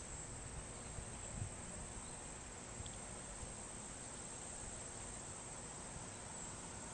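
Faint, steady, high-pitched drone of an insect chorus, over a low background rumble.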